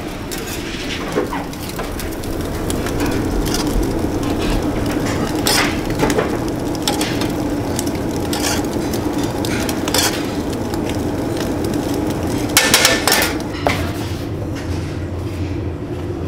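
Döner kebab being served up: metal tongs scraping and clinking against a china plate as shaved meat is piled on, over a steady kitchen hum, with a short burst of louder clattering about thirteen seconds in.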